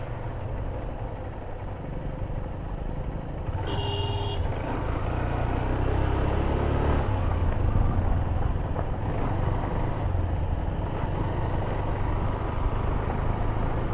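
Motorcycle engine running steadily while riding, with a low rumble that swells briefly in the middle. A short horn beep sounds about four seconds in.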